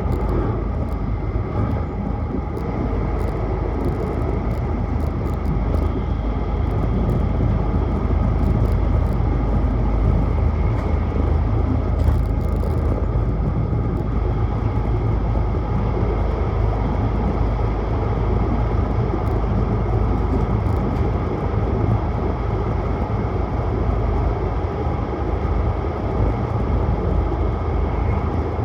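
Hayabusa Shinkansen train running at speed, heard from inside the passenger car: a steady low rumble and rushing noise with faint clicks and rattles.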